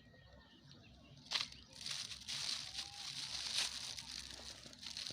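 Plastic litter being picked up and handled: a sharp crack about a second in, then a steady irregular crinkling and crackling of plastic.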